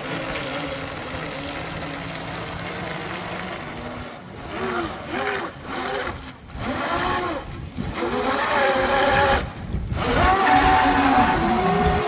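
Electric RC offshore powerboat's twin motors and 3D-printed propellers running: a steady whine at first, then from about four seconds in the pitch swoops up and down in short throttle bursts, and near the end it holds a higher tone. The props are cavitating, churning up water without driving the boat to speed.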